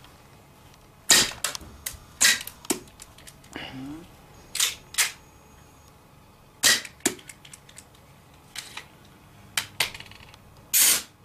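BB pistol fired about half a dozen times at uneven intervals, each shot a sharp crack. Several are followed by a fainter tick, like the BB striking the aerosol can.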